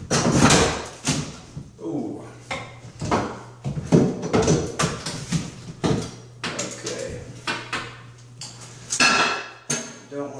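Claw hammer striking and breaking up the fiberglass bathtub surround at the wall, an irregular run of sharp knocks mixed with cracking and snapping of the panel as pieces are broken loose.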